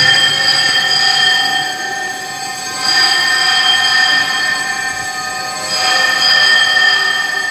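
Metal bells rung in three bursts of about two seconds each, a steady high ringing at several pitches at once.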